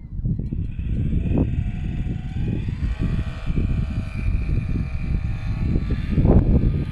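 Wind buffeting the microphone in irregular gusts. Under it, from about a second in, a steady droning hum of several tones.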